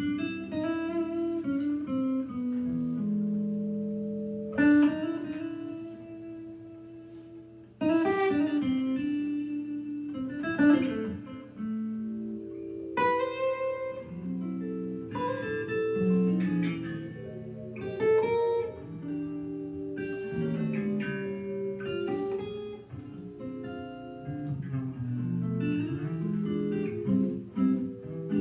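Live jazz organ trio music: electric guitar playing chords and melody over held Hammond B3 organ tones, with a few sharp hits from the drums.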